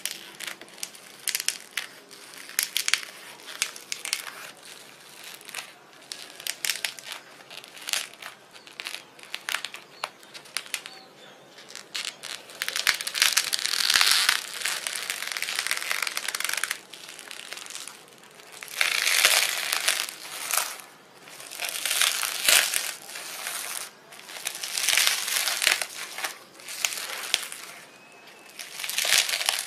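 Homemade slime being squeezed and worked by hand: squelchy crackling made of many small pops, coming in repeated bursts that get louder and longer in the second half.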